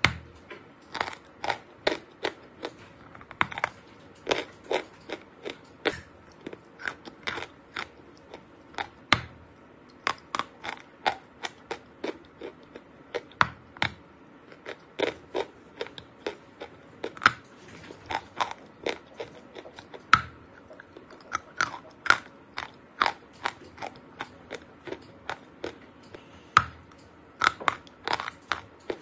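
A block of dry chalk being bitten and chewed: an irregular run of crisp crunches, two or three a second.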